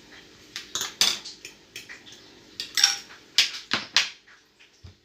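Kitchen utensils clinking and tapping against dishes: a string of irregular light clicks and knocks.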